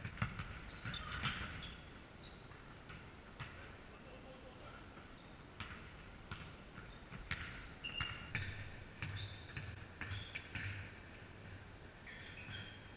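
Basketball game on an indoor court: the ball thudding on the gym floor and sneakers squeaking in short high chirps as players run, with scattered knocks echoing in the hall.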